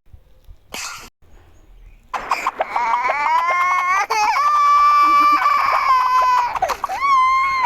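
Baby crying: one long, loud, high wail beginning about two seconds in, followed by another cry starting near the end.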